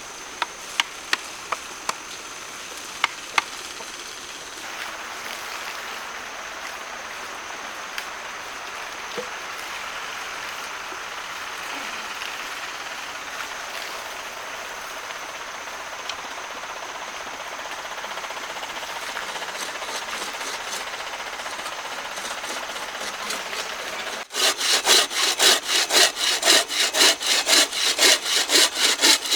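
Wood being worked with hand tools. A handful of sharp knocks come in the first few seconds, then a steady rasping. In the last five seconds there are loud, fast, even strokes, about five a second.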